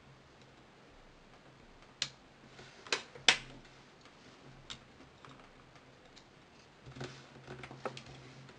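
Small hard clicks and taps of a plastic pry tool and metal tweezers working on a mobile phone's circuit board and frame. The loudest pair comes about three seconds in, and a run of lighter taps follows near the end.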